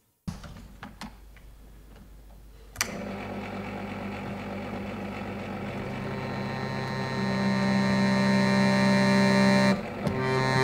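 Keyboard instrument holding a sustained chord that swells gradually louder, after a few soft clicks and a sharp click about three seconds in; the chord breaks off briefly near the end and comes back.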